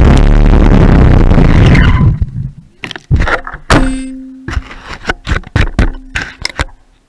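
Onboard camera on a Traxxas Stampede 4x4 RC truck as it tears through snow: a loud rushing noise of snow spray and wind on the microphone, which cuts away about two seconds in to scattered knocks and clicks of the truck's body and wheels on the snow, with a brief steady electric motor hum near the middle.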